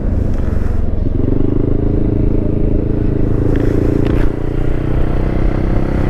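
Honda Forza 300 scooter's single-cylinder engine running at a steady cruise through an aftermarket exhaust taken from a Honda 500X, with low wind rumble on the microphone. A steady engine tone comes in about a second in and eases off a little after four seconds in.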